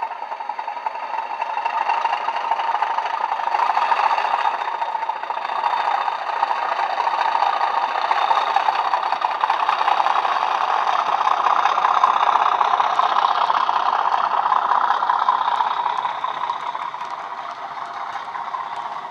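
DCC sound decoder in a Bachmann OO gauge Class 37 model playing a Class 37 diesel engine sound through the model's small built-in speaker, thin with almost no bass. It grows louder over the first couple of seconds as the locomotive approaches and fades over the last few as it moves away.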